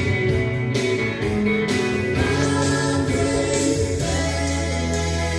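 A song with singing played back over a large hi-fi stereo system's floorstanding loudspeakers, with a held low bass note coming in about four seconds in.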